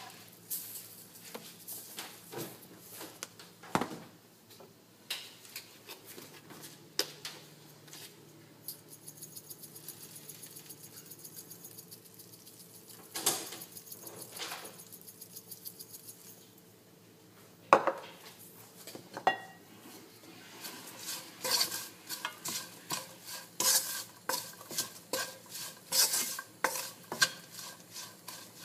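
Kitchen utensils tapping and clinking against a pan and containers while oil, salt and pepper are added to chopped herbs, with a run of fast light ticks in the middle. From about twenty seconds in, a spatula stirs and scrapes the greens in a nonstick frying pan, with frequent clicks.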